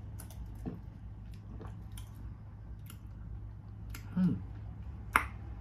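Mouth and swallowing sounds of someone drinking a ginger shot. About four seconds in comes a short, low, falling vocal sound, followed by a sharp click, all over a steady low hum.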